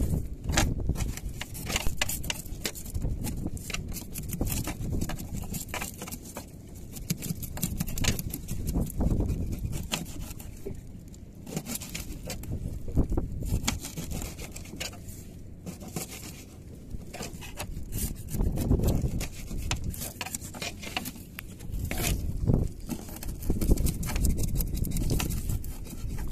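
Knives chopping small fish into bait chunks on a tarp-covered deck: irregular quick knocks and scrapes of the blades, over a low rumble that swells and fades.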